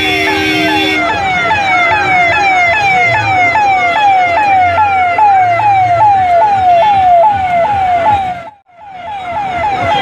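Electronic vehicle siren sounding a fast, repeating falling wail, about three cycles a second, that cuts out briefly near the end. A steady horn tone sounds over the first second.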